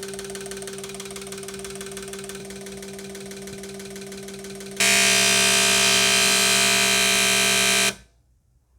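Fuel injectors pulsing on an injector test bench, a rapid even buzzing over a steady hum. About five seconds in, a much louder, hissy buzz starts and runs for about three seconds, then cuts off suddenly as the test step ends.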